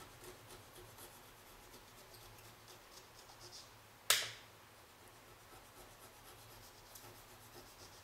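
Faint scraping strokes of a serrated multi-tool blade cutting along a rubber pocket facing on a pool table rail, with one sharp click about four seconds in.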